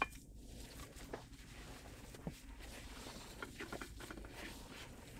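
Gloved hands kneading raw ground beef meatloaf mixture in a bowl: faint, irregular squishing.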